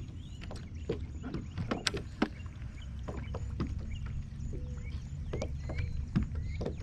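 Fishing kayak on the water: scattered light knocks and clicks of gear against the hull over a steady low wind rumble, with a few faint chirps.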